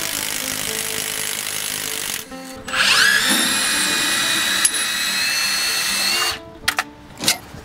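Cordless Milwaukee power tool working a suspension nut loose. It runs steadily, stops briefly, then its motor whine rises and holds a steady high pitch for about three seconds before cutting off. A few sharp metal clicks follow.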